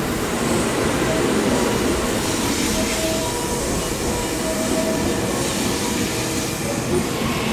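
JR Central 315 series electric multiple unit rolling past along a station platform: a steady rumble of wheels on rail, with a few brief faint whining tones.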